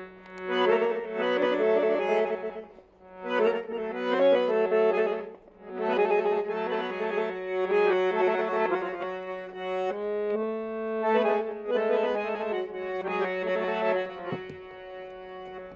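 Background instrumental music: a reedy melody in short phrases over a steady held drone note.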